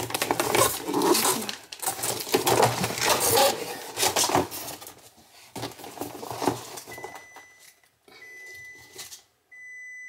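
Plastic food packaging crinkling and rustling as it is handled. From about seven seconds in, an appliance alarm sounds three long, steady beeps about a second apart, which comes from the refrigerator being left open.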